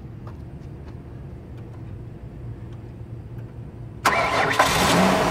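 Ford Windstar's V6 engine starting: about four seconds in the starter cranks it and it catches at once and keeps running, on a battery that is failing. Before that there is only a faint low hum.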